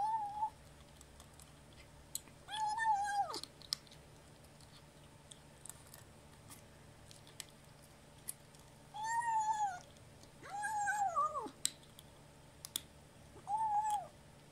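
A kitten making its little 'nom nom' calls while eating dry kibble: about five short, sing-song calls, each arching up and dropping off, with the faint crunch and click of kibble between them. The owner takes the calls for a growl telling others the food is hers.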